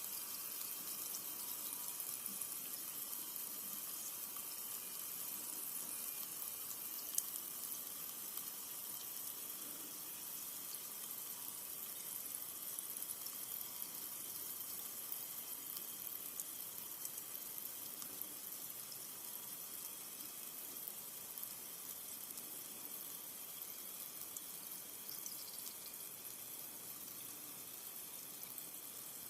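Carbonated soda fizzing: a steady hiss of tiny bubbles popping, flecked with fine ticks and slowly growing fainter, with one sharp click about seven seconds in.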